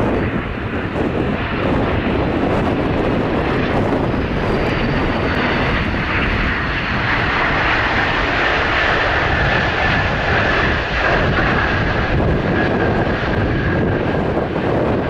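Antonov An-124's four turbofan engines on landing: a loud, steady rush of jet noise with a high whine that slowly falls in pitch.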